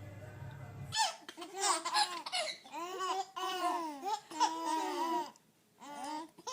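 Background music for about a second, cut off abruptly, then a baby laughing in a string of short, high-pitched bursts with a brief pause near the end.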